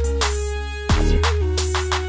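Background music with a beat: deep bass notes that change about a second in, under drum hits and a held tone.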